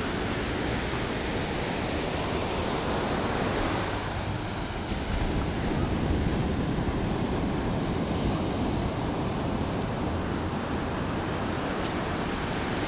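Ocean surf washing in steadily on a sandy beach, with wind buffeting the microphone; the wash swells louder about five seconds in.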